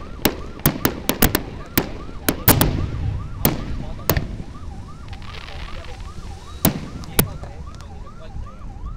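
Aerial firework shells bursting in a rapid run of sharp bangs and cracks for about four seconds, then two more bangs near seven seconds in. Underneath, a siren-like warbling tone rises and falls about two to three times a second throughout.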